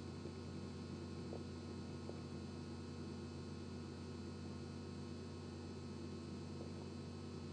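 Steady electrical hum under a layer of hiss, unchanging throughout, with a couple of faint clicks about a second and a half and two seconds in.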